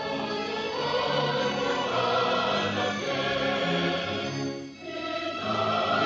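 Orchestral music with a choir singing, sustained chords changing every half second or so, with a brief dip in loudness about five seconds in.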